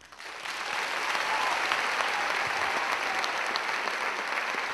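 Audience applause, swelling in over the first half second and then holding steady.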